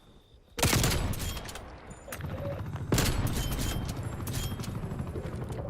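Gunfire in a first-person shooter game: a loud burst of shots about half a second in, another heavy hit about three seconds in, then steady rapid automatic fire.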